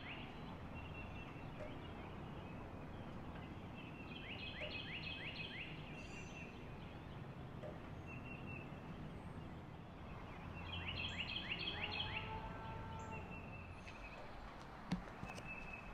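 A bird calling outdoors twice, each call a quick run of about five or six descending notes, about four seconds in and again about eleven seconds in, over a faint steady background.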